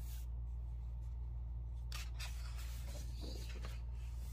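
Page of a hardbound coloring book with slick paper being turned by hand: a short paper rustle about two seconds in and another about a second later. A steady low hum runs underneath.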